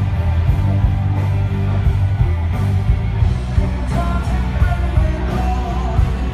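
Amplified rock music over loudspeakers: electric guitar over a heavy bass line and a regular drum beat.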